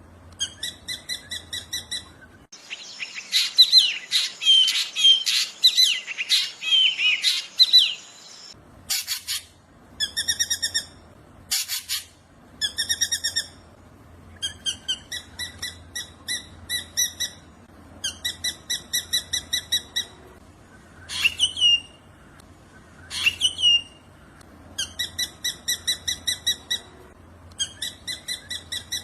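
Black drongo singing: repeated runs of rapid, harsh stuttered notes, broken near the start by a few seconds of varied whistled glides and later by two steep swept calls.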